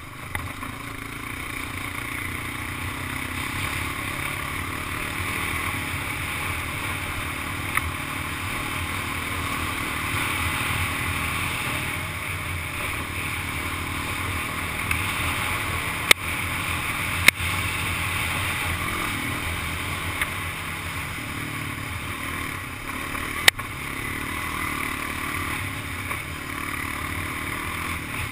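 Honda ATV engine running steadily as it rides, with a few sharp knocks about two thirds of the way through.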